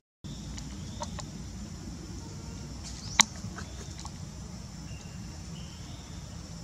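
Outdoor ambience: a steady low rumble with a few faint high chirps, and one sharp click about three seconds in. The sound drops out for a moment at the very start.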